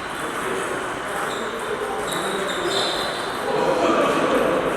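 Indistinct background chatter of several voices, with a few short high-pitched squeaks or pings.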